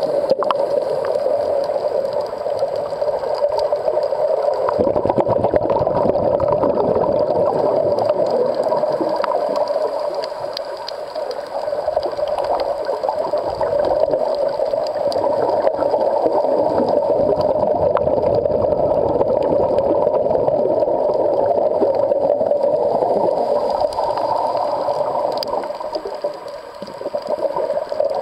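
Underwater ambience picked up by a camera filming on a coral reef: a steady, muffled water noise with scattered faint clicks.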